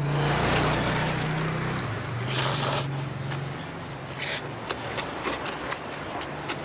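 Jjajangmyeon noodles being slurped and eaten from a bowl with chopsticks, in a few short noisy slurps with small clicks between, over a steady low hum.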